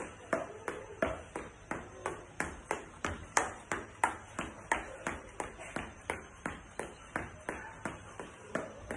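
Footfalls of sneakered feet striking a tiled floor in a steady rhythm of about three steps a second, from high-knee stepping in place.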